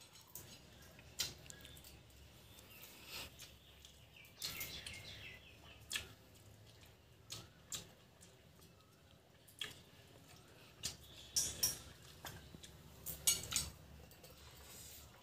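Eating rice by hand from a stainless steel plate: fingers scraping and mixing rice against the metal and mouth sounds of eating, heard as scattered short clicks and brief scrapes at uneven intervals.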